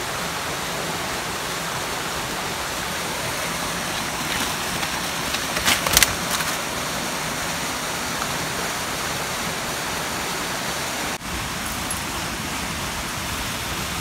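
Steady rushing of running water, with a few light taps and rustles about six seconds in.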